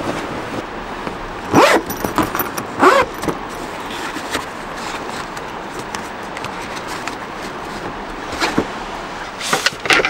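Tent window zipper and nylon fabric being handled: a few short rasping pulls and rustles over a steady rush of strong wind outside the tent.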